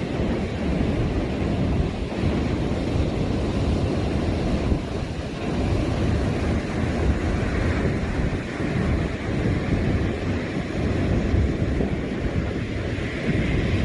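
Wind buffeting the microphone: a continuous low rumbling rush that swells and dips in gusts, with ocean surf washing underneath.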